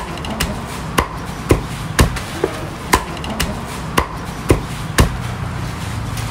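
A heavy cleaver chopping grilled chicken on a thick round wooden chopping block: sharp, evenly spaced chops about every half second, with a few lighter taps between, stopping about five seconds in.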